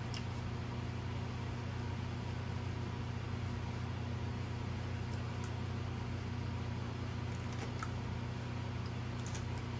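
Steady low machine hum, with a few faint light clicks of a fork against a paper plate.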